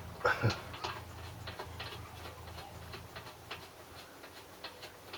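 Irregular light clicks and taps, about two a second and loudest in the first second, over a faint low hum that fades out after a couple of seconds.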